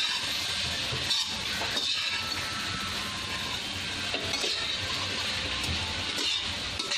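Shredded cabbage, peas and tomato sizzling steadily in hot oil in a deep pan while being stirred with a spatula, with a few clinks and scrapes of the spatula against the pan.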